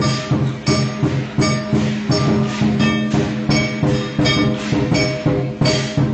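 Live lion dance percussion: a big drum, crash cymbals and a gong beating a steady, driving rhythm, with strikes about two to three times a second and the cymbals and gong ringing on between them.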